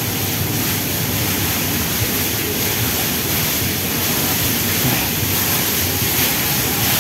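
Steady rush of falling water from an artificial waterfall, an even hiss with no changes.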